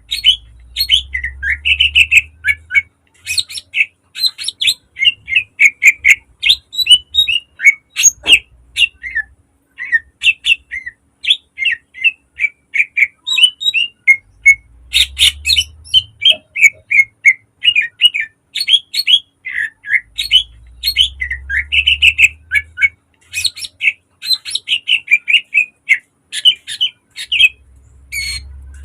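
A cucak ijo (greater green leafbird) sings in a fast, unbroken run of sharp chirps, trills and whistled notes. This is the loud, rapid 'gacor' song that keepers play to spur other birds to sing.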